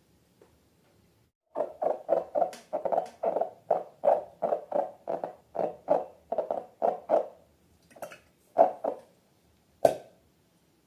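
Slime being squeezed and worked by hand, giving a quick run of short squelching pops, about three a second, then three more single pops near the end.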